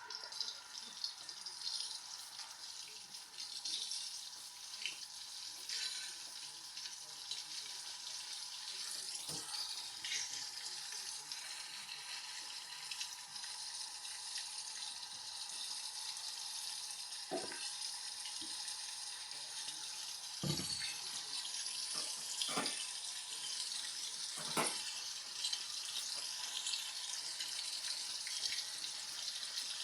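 LG washing machine filling at the start of its heavy-load cycle: a steady hiss of water pouring into the drum, with a faint steady tone and a few sharp knocks in the second half.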